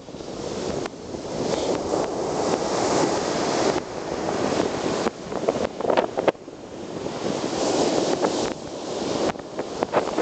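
Black Sea surf washing up a sandy beach, the rush of breaking waves swelling and easing every few seconds, with wind buffeting the microphone.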